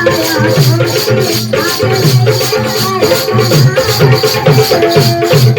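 Instrumental passage of Adivasi folk dance music: a drum beat over a steady high rattling rhythm, with a short melody repeating.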